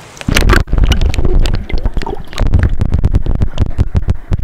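A camera is dunked into a flowing stream, with a splash about a third of a second in. Then comes the muffled underwater rumble of the current, with many sharp clicks and knocks against the camera housing.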